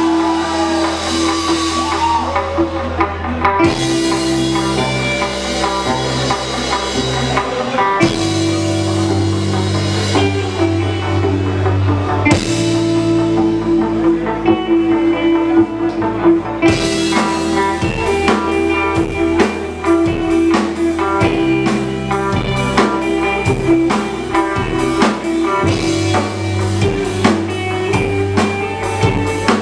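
Instrumental progressive rock band playing live: electric guitars over a drum kit. About halfway through, the drums switch to a dense run of rapid, regular hits.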